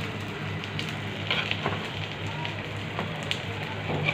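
Vegetables frying and sizzling in a nonstick pan, with a few sharp clinks of a metal spoon against the pan as bagoong (shrimp paste) is spooned in and stirred.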